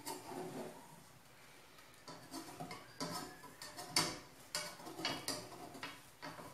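Metal slotted skimmer tapping and scraping against a frying pan as the batter cooks: a few light clicks at first, then an irregular run of sharp clicks, two or three a second, from about two seconds in.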